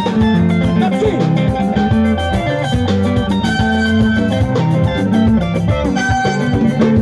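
Live band playing, led by electric guitar over bass and drum kit, with a dense, steady rhythm.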